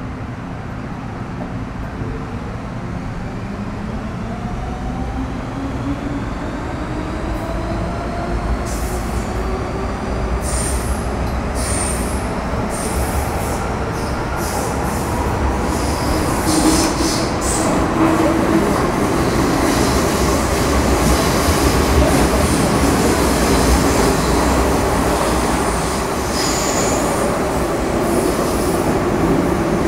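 MTR Metro Cammell M-Train electric multiple unit with GEC GTO chopper control, heard on board while running: traction whine rising in pitch as the train gathers speed over a growing rumble. From about ten seconds in, high-pitched wheel squeal comes and goes.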